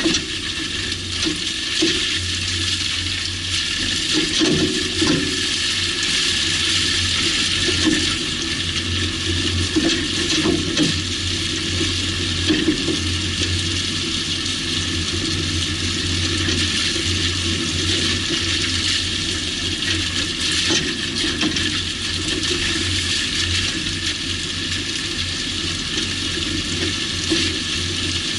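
Peugeot 605 on the move: steady rushing road and tyre noise with a few short knocks now and then. The owner puts the knock down to the right rear anti-roll bar.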